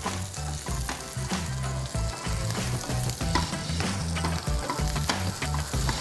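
Diced chorizo sizzling and crackling with many small pops as it fries in a pan with a little fat, being fried until crisp. A wooden spatula stirs it and scrapes the pan.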